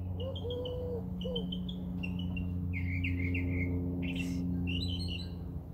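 Small songbirds chirping and singing in short, quick repeated phrases, some falling in pitch.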